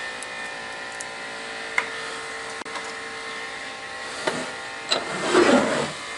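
Steady electrical or motor hum with a few sharp knocks, then a louder clatter of objects being handled and set down near the end.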